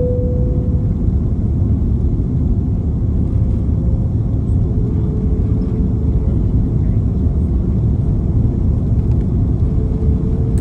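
Steady low rumble of engine and airflow noise inside an Airbus A330's cabin in flight on approach, with a faint humming tone that fades about a second in and returns faintly later.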